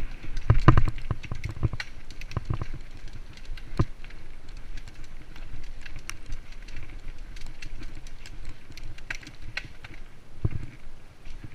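Mountain bike riding down a dirt forest singletrack: tyre noise on the dirt with frequent clattering knocks from the bike over bumps and roots, heaviest in the first second and again near the end.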